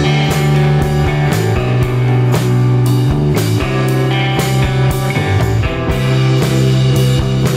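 Background rock music: guitar chords over a strong bass line and a steady drum beat.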